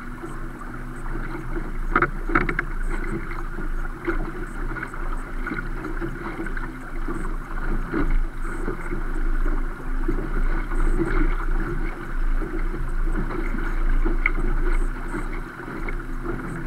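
Water rushing and splashing along the hull of a DS16 sailboat under sail, with wind buffeting the camera microphone. A couple of sharp knocks come about two seconds in, and another around eight seconds.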